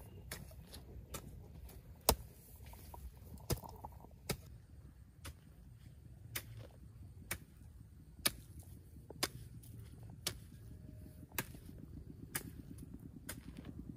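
A hoe chopping into the ground in steady strokes, about one strike a second, each a short sharp hit.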